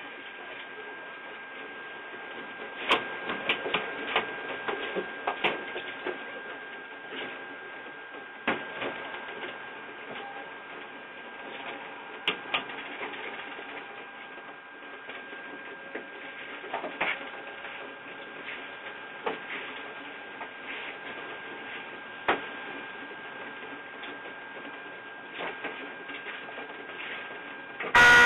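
Ride-on miniature train running along its track: a steady electric motor whine with scattered clicks and knocks from the wheels and running gear. Near the end a loud ringing chime with several tones cuts in.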